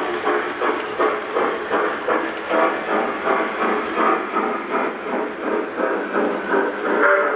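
Lionel O-gauge model steam train running: an even rhythmic chuff with hiss, pulsing about twice a second, over the rolling of the wheels on the track. A whistle tone begins right at the end.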